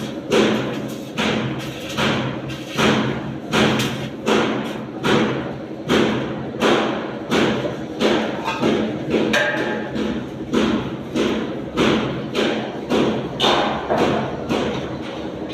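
Hammer blows on a steel shipping container, struck at a steady pace of about four blows every three seconds, over a steady low hum.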